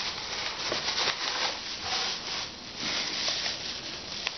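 Crinkly packing wrap rustling and crackling in uneven swells as it is handled and pulled from a mailing box.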